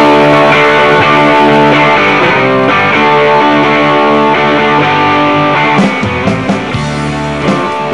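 Live rock band playing loud held electric guitar chords. About six seconds in, drum strikes and a beat come in.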